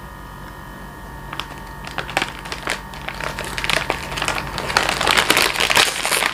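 Plastic wrapper of an instant noodle pack crinkling and crackling as hands rummage in it and lift the dry noodle block, starting about a second in and growing busier and louder toward the end. A steady electrical hum runs underneath, plainest before the crinkling starts.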